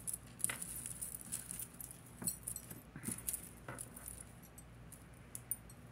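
Fine metal chains and beads clinking and rattling softly as a tangled necklace is picked apart by hand, in scattered light clicks.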